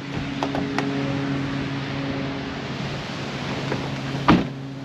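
Vehicle running with a steady engine hum under road and wind noise, with one short loud knock about four seconds in.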